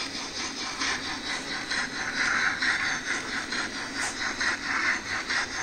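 OO gauge model steam locomotive and coaches running along the track: a steady rushing running noise with a regular beat of about five a second.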